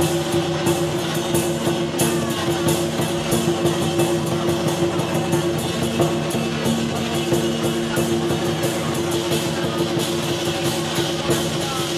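Lion dance percussion band playing: a large drum beaten with cymbals clashing in a fast, unbroken rhythm, over a steady ringing tone.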